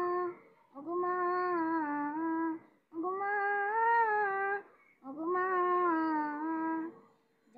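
A young boy singing an unaccompanied gojol: a wordless passage of long held, gently wavering notes, in three phrases with short breaths between.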